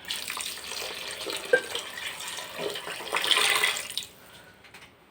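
Water poured into a kadai of cooked tomato-and-spice masala for kurma, running steadily and growing louder before it stops about four seconds in.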